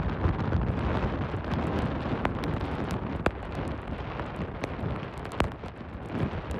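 Hurricane-force wind buffeting the microphone: a heavy, rumbling rush, strongest at the start, with many sharp clicks scattered through it.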